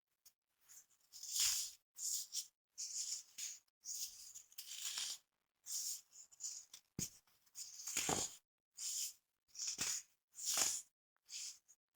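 Packed powder crunching and crumbling as it is squeezed and crushed by hand: about a dozen short, gritty crunches in a loose, uneven rhythm, a few with a duller thud underneath.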